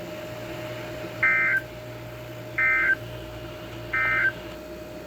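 Emergency Alert System end-of-message SAME data bursts from a NOAA Weather Radio broadcast: three short, buzzy digital bursts about a second and a half apart. They signal the end of the alert message. Under them runs a faint steady hum.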